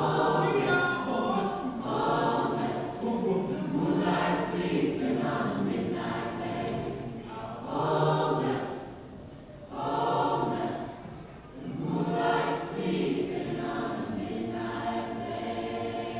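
Large mixed choir of adult and children's voices singing together in phrases, with a couple of brief dips in volume about ten seconds in.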